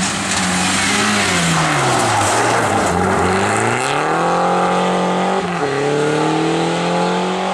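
Peugeot 207 rally car's engine at full stage pace. The revs fall away into a corner, then climb hard as it accelerates out, with a brief break for an upshift about five and a half seconds in. A hiss of loose dirt and gravel from the sliding tyres rides over the first part.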